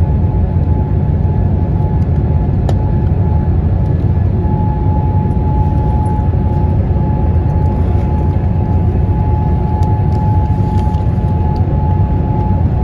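Cabin noise of a Boeing 787-8 climbing after takeoff: a steady roar from its Rolls-Royce Trent 1000 engines and the airflow, with a steady whine that grows stronger about four seconds in.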